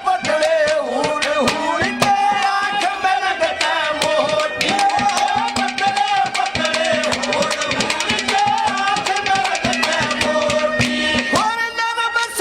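Haryanvi ragni folk music: a quick, steady hand-drum beat under a wavering melodic line.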